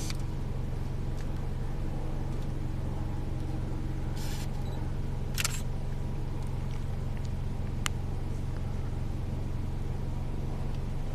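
Van engine idling steadily with a low hum, with a few brief sharp clicks about four, five and a half and eight seconds in.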